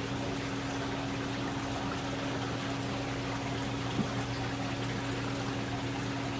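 Steady trickle of circulating aquarium water with a pump's low, even hum, and a single brief tick about four seconds in.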